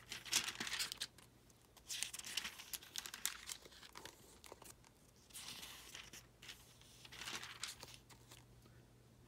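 Thin study-Bible pages rustling as they are turned, in several short bursts.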